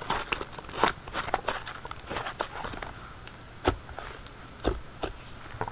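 Soft clay-based butter slime being squished and worked by hand, giving irregular sticky clicks and small pops.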